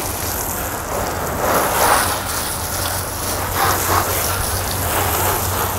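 Garden hose spray nozzle rinsing a car, a steady spray of water hissing and pattering on the painted body panels, swelling now and then as the stream moves; the post-wash rinse that clears loosened dirt and soap from the panels and crevices.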